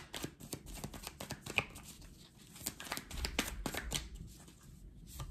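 A deck of animal oracle cards being shuffled by hand: a fast, irregular run of crisp card flicks and snaps.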